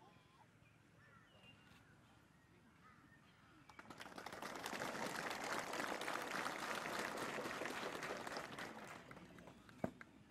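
Spectators applauding: the clapping starts about four seconds in, holds for several seconds and dies away near the end.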